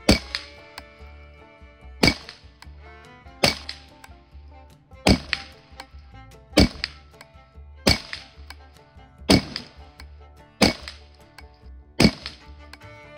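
.22 Long Rifle rifle firing Winchester Super X rounds in steady succession, nine sharp shots about one and a half seconds apart, each with a short ringing tail.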